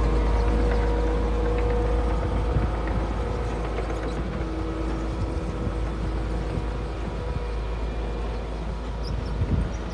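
Kato CL35 compact track loader's diesel engine running steadily under load with a steady whine as the machine tracks across loose dirt and gravel, grading the pad.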